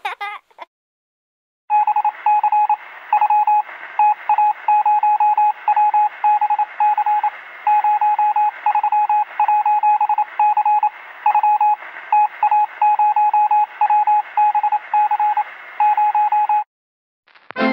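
A fast run of beeps on one high pitch, keyed in short and long marks like Morse code, over a hiss with a faint steady whine, sounding as if heard through a radio or telephone line. It starts about two seconds in and stops suddenly a second before the end.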